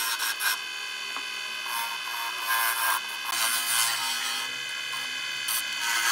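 Wood lathe running while a chisel cuts a spinning wooden spindle: a continuous rasping, scraping hiss of the cut over a steady whine.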